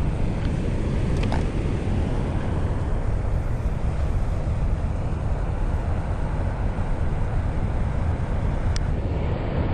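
Wind buffeting the camera's microphone: a steady low rumble, with a couple of faint clicks.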